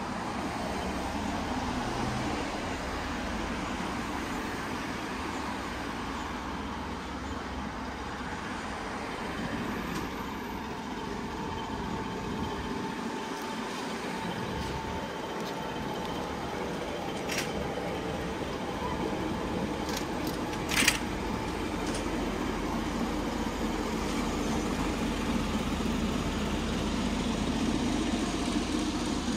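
Steady street traffic: cars and trucks passing on a city road, with road noise that swells in the last third. A single sharp click or knock cuts through about two-thirds of the way in.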